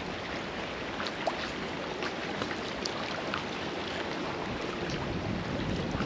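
Small wind-driven lake waves lapping and splashing against a concrete jetty, under a steady wash of wind. Faint short ticks and splashes are scattered through it.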